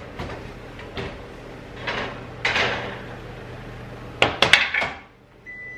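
Oven door opened and a metal baking tray slid out and set down, with a few sharp clatters about four seconds in. A steady high tone starts near the end.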